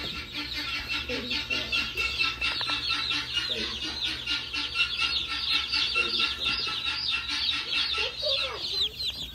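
A brooder full of baby chicks peeping all at once: hundreds of high, quick cheeps overlapping into one continuous chorus.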